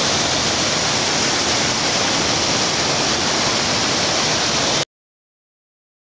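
Rushing water of a stream tumbling over boulders below a waterfall, a steady hiss that cuts off suddenly about five seconds in.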